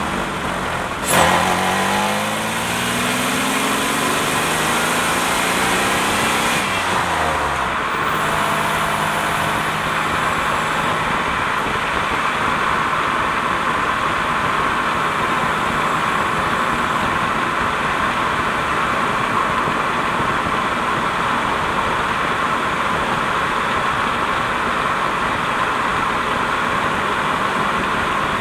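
Series II 3800 V6 and Getrag 282 transaxle of a 1988 Fiero heard from underneath while driving: a sharp clunk about a second in, the engine rising in pitch as it pulls through a gear, a drop in revs around seven seconds in as it shifts, then steady road and drivetrain noise at cruise.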